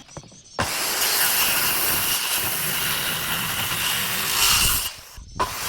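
A power tool cutting wood with a steady, continuous noise. It starts about half a second in, cuts out for a moment about five seconds in, then starts again.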